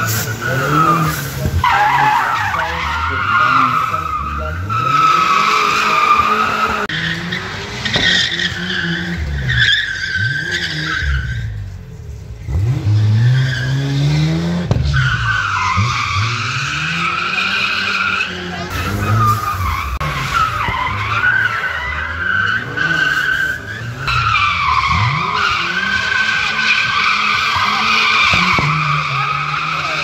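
Cars drifting through a coned gymkhana course: tyres squealing in long sustained screeches while the engines rev up and down. There is a brief lull about twelve seconds in.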